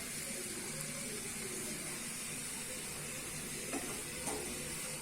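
Fried onions, ginger garlic paste and spice powders sizzling steadily in hot oil in a pan, with a couple of faint clicks about four seconds in, as from a spoon against the pan while mixing.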